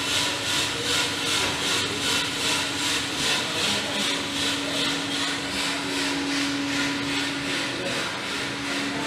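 Coffee roasting machine running: a steady motor hum with a rhythmic swishing that pulses about twice a second.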